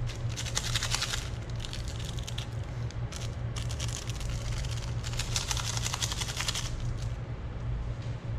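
Foil instant-noodle seasoning sachets crinkling as they are squeezed and shaken out, in four crackly bursts of about a second each, over a steady low hum.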